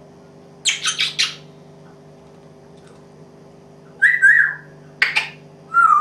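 African grey parrot calling: a quick run of three harsh, noisy calls about a second in, then, from about four seconds on, a string of squawks and pitched, bending calls.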